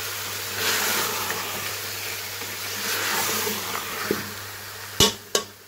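Beef and potato pieces sizzling in oil in a metal pot as they are stirred with a spatula, the sizzle swelling with the stirring strokes. Near the end, two sharp knocks in quick succession.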